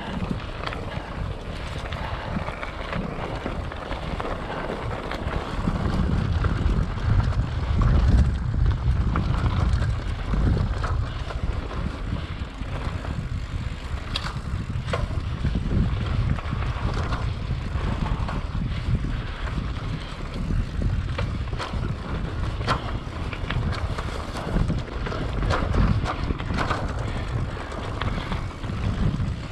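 Mountain bike being ridden on a dirt trail: wind buffeting the microphone and tyre rumble, with scattered sharp clicks and rattles from the bike. It grows louder for a few seconds about a quarter of the way in.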